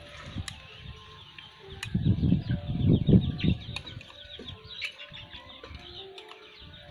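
Domestic chicken clucking softly, with a few sharp clinks. About two seconds in, a loud low rumbling of the camera being moved and handled drowns everything else for a second and a half.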